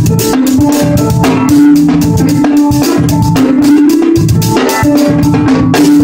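Live band music led by a drum kit played with sticks, giving a busy stream of drum and cymbal hits over a melodic instrument playing held notes.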